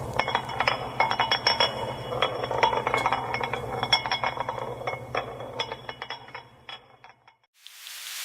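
Rapid glassy clinking and chiming over a steady low hum, like a music bed. It stops about seven and a half seconds in, and a whoosh swells up near the end.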